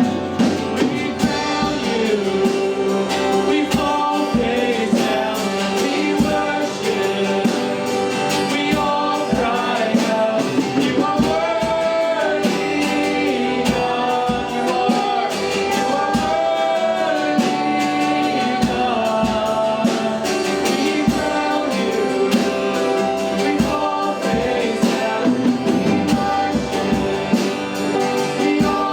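Congregational worship song: voices singing a gospel hymn together over an accompanying band with a steady beat.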